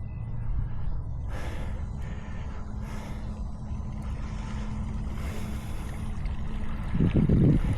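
Wind buffeting the microphone as a steady low rumble, under a steady low hum that stops near the end. A few short breathy puffs and a louder rustle come about seven seconds in.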